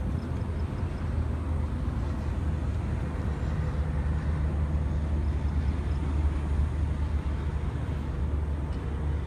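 Steady low rumble of wind buffeting the phone's microphone, flickering rapidly throughout and swelling slightly in the middle.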